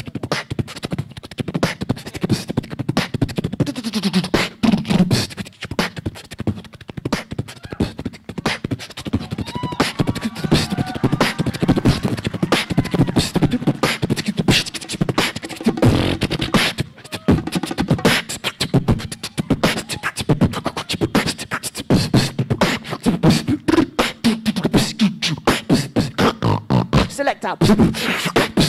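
Live beatboxing into a handheld microphone: a fast, dense stream of mouth-made clicks, snares and kick-drum sounds. Low sliding vocal tones come in at times among the beats.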